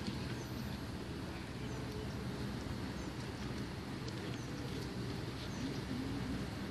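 Outdoor ambience: a steady hiss of wind and distant murmur, with faint short bird chirps about once a second.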